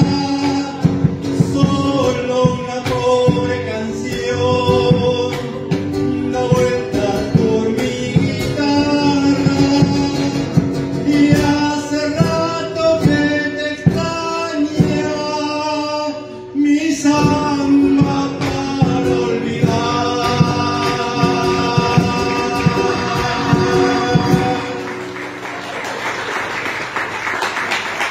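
Two men singing a song live, with guitar, over a steady beat. About 25 seconds in the song ends and the audience applauds.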